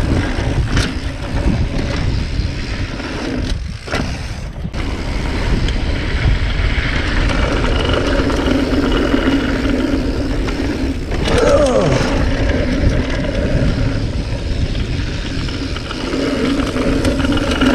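Yeti SB 95 mountain bike running fast down a dirt trail: a steady rush of wind on the chest-mounted camera and tyres on dirt, with a low buzz that comes and goes and a few knocks and rattles over bumps.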